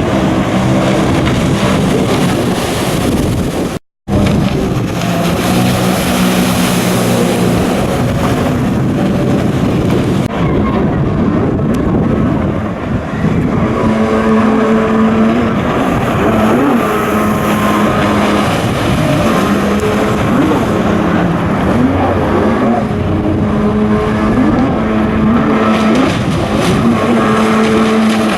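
Jet ski engines running hard, their pitch rising and falling as they rev up and ease off. The sound cuts out for a moment about four seconds in.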